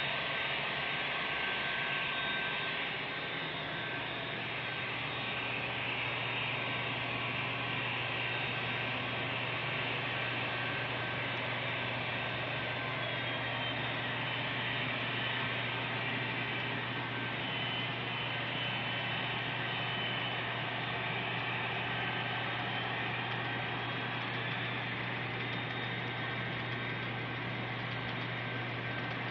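Sound-equipped model BNSF SD70ACe diesel locomotives playing simulated EMD prime mover sound as a model coal train runs. It is a steady low engine hum over a constant hiss, with the low drone settling in a few seconds in.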